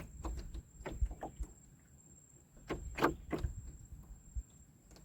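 Irregular hard knocks and clacks in two clusters, one near the start and another about three seconds in, over a low rumble.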